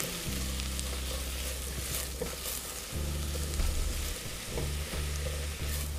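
Chopped onions sizzling in olive oil in a stainless steel pot, stirred with a silicone spatula. The onions are being sweated over medium-low heat until translucent.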